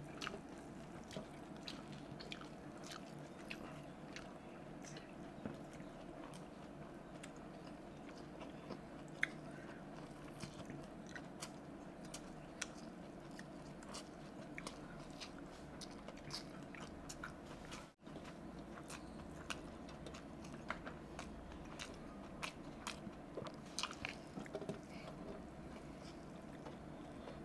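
Close-miked chewing of chowmein noodles: many small wet mouth clicks scattered over a faint steady room hum.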